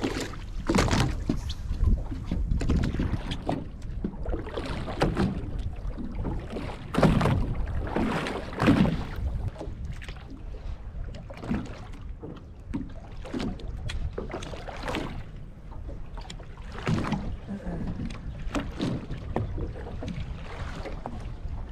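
Wind buffeting the microphone and water slapping against the hull of a drifting fishing boat, in irregular gusts and splashes over a low rumble.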